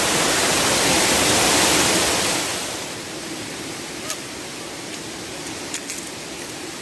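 Rushing water from a waterfall, a steady hiss that drops noticeably in level about two and a half seconds in, with a few faint clicks later.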